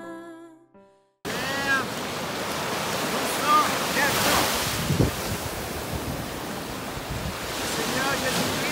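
Music fades out in the first second; after a moment of silence, sea surf comes in, waves breaking and washing up the shore with an even rushing noise that swells now and then.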